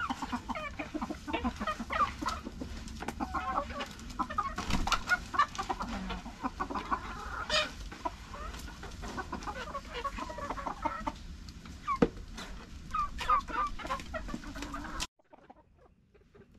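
A flock of native chickens clucking as they crowd around to feed, with scattered short clicks among the calls. The sound cuts off suddenly near the end.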